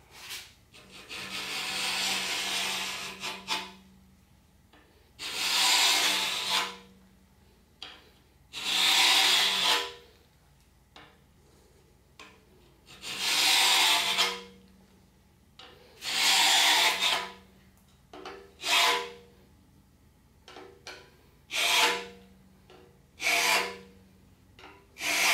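Hook scraper made from an old file, pulled in strokes along the bottom of a worn dovetail on a cast-iron milling machine column, hogging out the bottom of the dovetail. About nine rasping strokes with pauses between: the first few are long and the last few are short and quicker.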